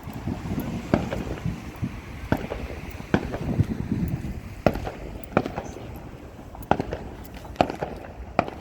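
Fireworks going off: sharp bangs and cracks at uneven intervals, roughly one a second, over a low rumble.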